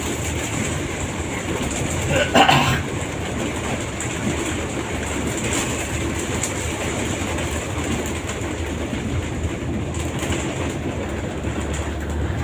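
Steady rumble and rattle of a moving public-transport vehicle heard from inside the cabin, with a brief louder sound about two and a half seconds in.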